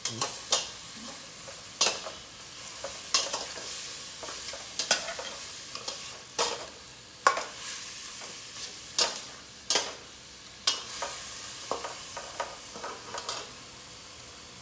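A steel ladle stirring food in a metal pot on a portable gas stove, giving irregular sharp clinks and scrapes against the pot over a steady sizzle of the cooking food.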